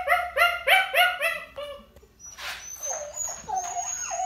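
Young puppy in a crate barking in a fast run of short, high yaps, about four a second, that stops a little under two seconds in; quieter, drawn-out whining follows. This is crate whining and barking, the attention-seeking or crate-anxiety behaviour that is being deliberately ignored.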